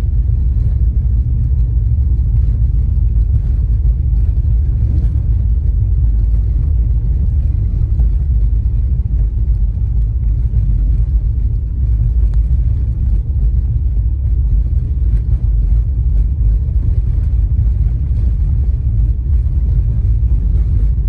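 Strong wind buffeting the microphone: a loud, steady low rumble without a break.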